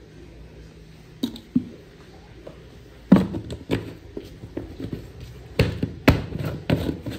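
Irregular string of sharp taps and knocks, like objects being picked up, handled and set down, starting about a second in and coming closer together in the second half.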